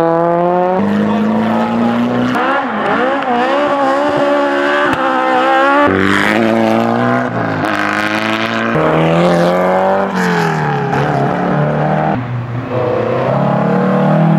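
Historic car engines revving hard as they pass, with the pitch repeatedly climbing and then dropping at each gear change or lift of the throttle.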